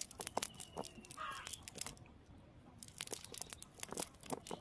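Cast net being picked over by hand, its mesh giving irregular crackles and rustles. A short bird call sounds about a second in.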